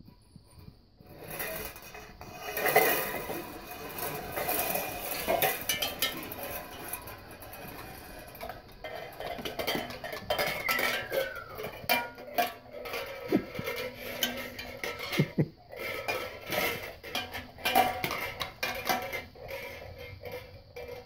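Hanging plastic cups and tin cans on a pipe-frame dog toy knocking and clinking together as a Labrador puppy noses and bats them: a busy clatter of small knocks with some ringing, starting about a second in.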